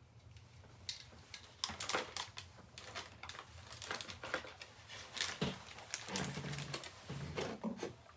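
Scattered light clicks, taps and rustles of small items being handled and set down, over a faint low hum.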